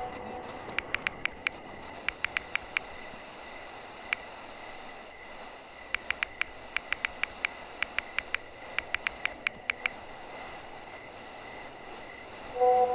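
Smartphone on-screen keyboard tap clicks in quick runs of several presses as a chat message is typed. A short phone message chime comes near the end.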